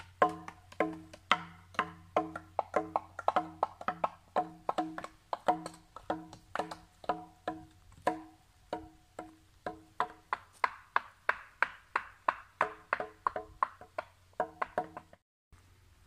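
Sticks striking cut logs played like a log xylophone, giving hollow, pitched wooden knocks on a few different notes in a quick, steady rhythm of about three strikes a second. The playing cuts off shortly before the end.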